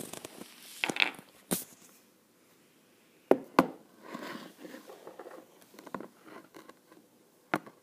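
Handling noise: a few sharp knocks and taps, two close together about three and a half seconds in and one near the end, with soft rustling between.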